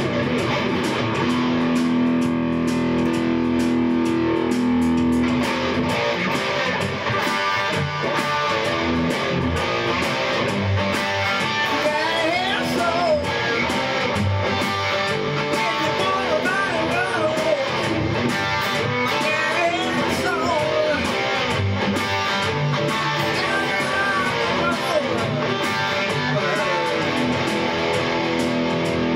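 Instrumental rock song: an electric guitar plays a lead with bent, gliding notes over a bass line and a steady drum beat.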